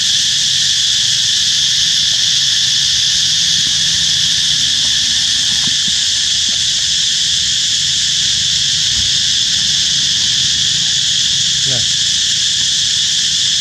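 A steady high-pitched insect drone, several buzzing pitches layered without a break.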